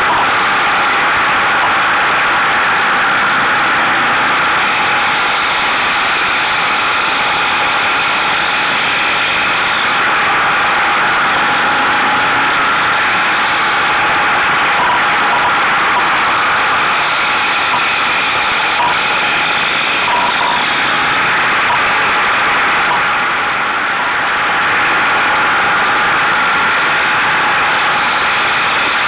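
Buell motorcycle on the move through corners: a loud, steady rush of wind and engine noise picked up by a camera mounted on the bike's mirror stalk, easing briefly about three quarters of the way through.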